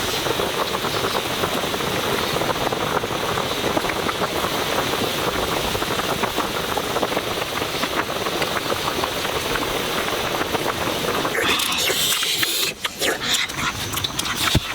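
Food cooking over a fire, with a steady crackling hiss. Near the end it gives way to sharper, separate clicks and knocks.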